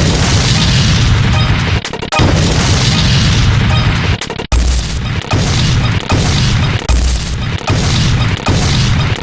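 A dense, loud pile-up of rapid-fire sound effects with heavy booming bass, cut off sharply and restarting about two seconds in and again about halfway through.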